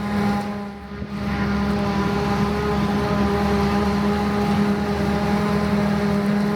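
Claas Jaguar 970 self-propelled forage harvester running steadily while chopping, with the drone of its MAN diesel engine and a steady even hum of several tones.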